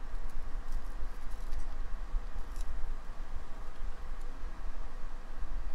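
Steady low hum with a few faint ticks and crackles as a soldering iron presses copper desoldering wick onto a circuit-board solder joint.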